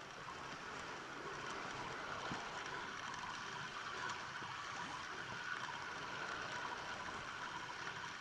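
Steady rush and gurgle of water against a fishing kayak's hull as a hooked fish runs with the line.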